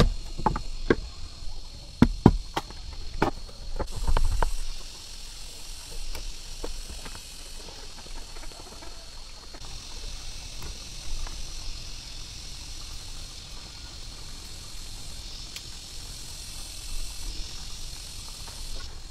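A large knife chopping into a bamboo pole: several sharp knocks in the first few seconds, then quieter scraping and small cracks as a thin strip is split off, over the steady buzz of insects.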